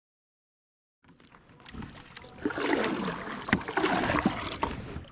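Silence for about a second, then water splashing and sloshing around a fishing kayak, with a few sharp knocks.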